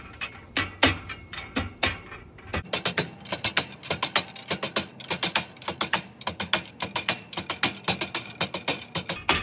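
A Stiletto hammer taps aluminum deck-rail balusters down into the rail, making sharp metallic taps with a short ring. The taps are spaced at first, then from about three seconds in come quickly and evenly, several a second.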